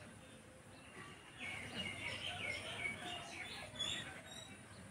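Small birds chirping: a quick run of short, high chirps between about one and a half and four seconds in.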